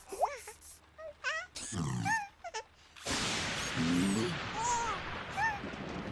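Cartoon sound effects: short, squeaky cries that glide up and down, with a few pops, then from about halfway a steady hiss with more brief cries over it.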